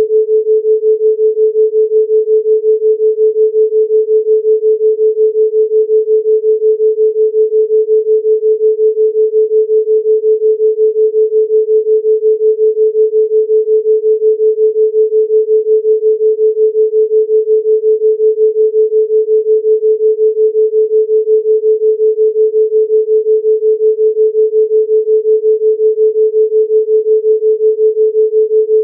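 Steady electronic pure tone at 432 Hz with a fast, even pulsing in loudness: a theta-rate beat tone made to be listened to for brainwave entrainment.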